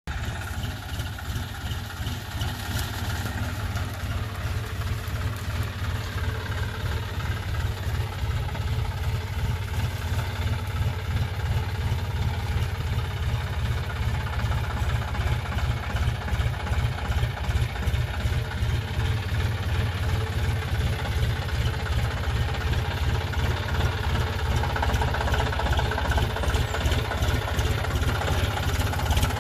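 John Deere 5036D tractor's three-cylinder diesel engine running steadily while pulling a trolley loaded with sugarcane. It is a low, evenly pulsing engine note that grows louder toward the end as the tractor comes closer.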